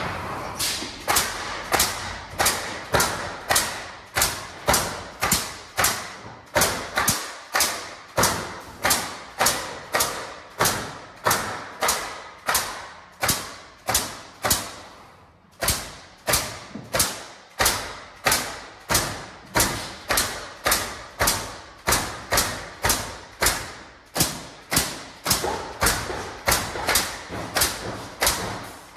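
Regular heavy thumps, close to two a second, each ringing briefly, with a short break about halfway through.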